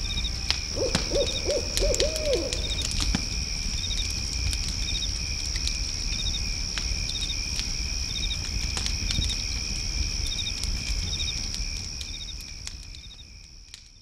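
An owl hooting a quick run of about five hoots, starting about a second in. Behind it are steady high-pitched insect trills and faint chirps about once a second. Everything fades out near the end.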